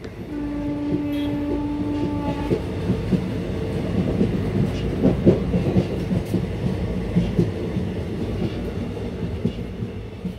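Inside a moving passenger train coach: a steady rumble with irregular rattling and clanking of the coach and wheels over the rails, busiest about five seconds in. Near the start a train horn sounds one long, steady note for about two seconds.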